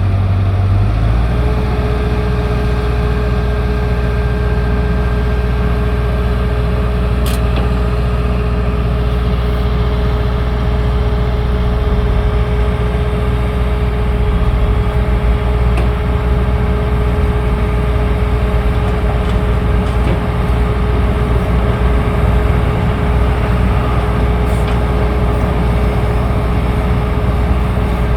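Large engine of a vehicle or work machine idling steadily: a low hum, joined about a second in by a steady whining tone.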